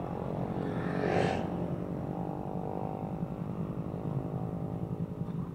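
Motorcycle engine idling steadily, with a brief hiss about a second in.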